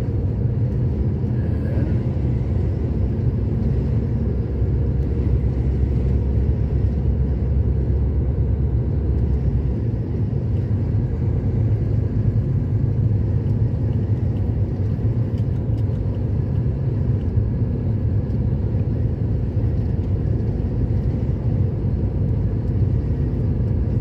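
Car travelling steadily along a highway, heard from inside the cabin: a constant low rumble of engine and tyre road noise.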